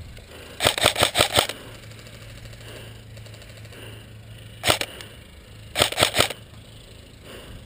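Airsoft rifle firing three short bursts of rapid shots: a burst of about six shots near the start, a couple of shots around the middle, and four or five more soon after.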